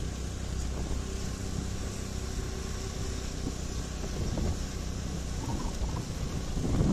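Motor scooter running steadily while being ridden, with road noise. A short louder rumble comes near the end.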